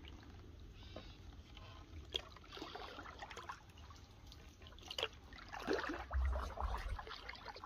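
Canoe paddling: the paddle blade dipping and water trickling and dripping off it, with a couple of light knocks and a brief low rumble about six seconds in.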